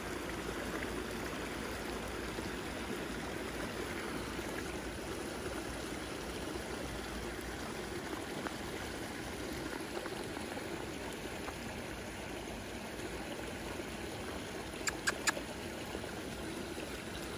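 Small forest stream running over rocks, a steady rushing trickle of water. About fifteen seconds in, three short sharp clicks stand out above it.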